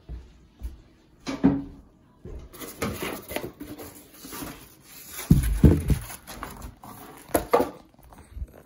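Handling noises around a cardboard pizza box: rustling, with a few knocks and low thumps, the loudest about a second in and again in the middle, as a slice of leftover pizza is picked up.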